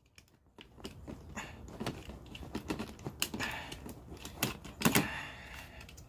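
Hard plastic clicks and knocks of a DeWalt DCA1820 battery adapter being worked in and out of an 18-volt tool's battery well, irregular and stiff-fitting, with a louder clack about five seconds in.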